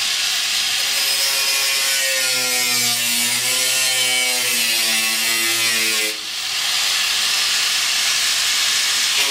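Angle grinder grinding the steel body of a VAZ-2105. Its whine wavers in pitch, and it drops briefly about six seconds in before carrying on.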